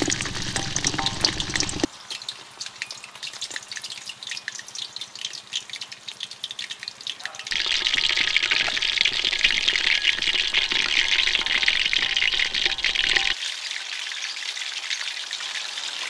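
Food frying in hot oil, a steady crackling sizzle. It changes abruptly about two seconds in and again midway, where it gets louder and denser, then drops back near the end.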